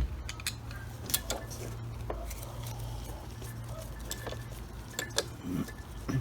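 Scattered light metallic clicks and clinks of a Phillips screwdriver and small parts as a Holley carburettor is taken apart.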